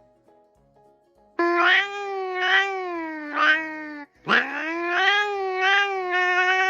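A cat giving two long, drawn-out meows: the first starts about a second and a half in and lasts nearly three seconds, the second follows at once and is still going at the end. Faint plucked background music is heard before the first call.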